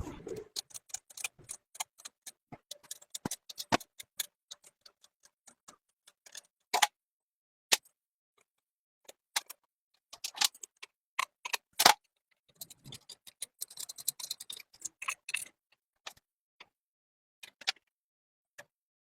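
Irregular sharp metallic clicks and clinks of tools and parts being handled while a three-cylinder engine is assembled, with a denser run of quick clicks about two-thirds of the way through.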